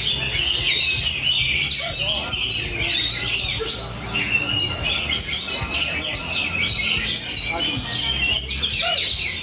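Many caged songbirds singing at once, a dense, continuous overlapping mix of chirps, trills and warbles.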